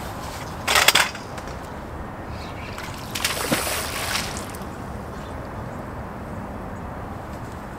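A short, sharp clatter of fishing gear about a second in, then a hissing swish lasting about a second and a half as a spinning rod is cast.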